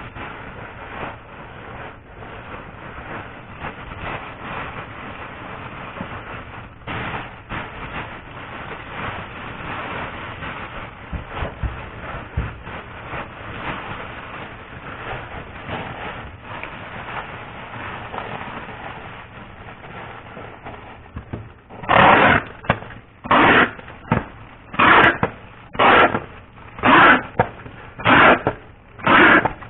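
Foil wrappers crinkling and rustling as they are handled, a steady crackle of small clicks. From about 22 seconds in come louder rasping crinkles, about one a second.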